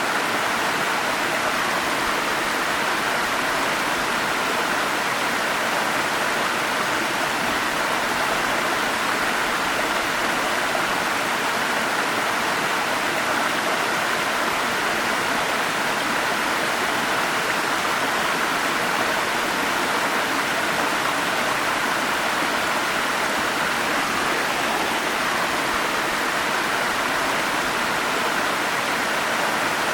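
Forest stream flowing: an even, unbroken rush of water.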